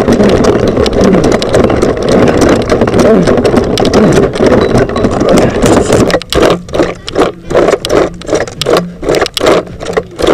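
Wind rushing over the microphone of a camera carried by a running person. About six seconds in it gives way to a regular thumping of running footfalls, about three a second.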